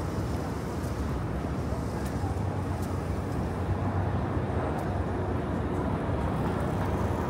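Steady city street traffic noise, an even rumble of passing vehicles.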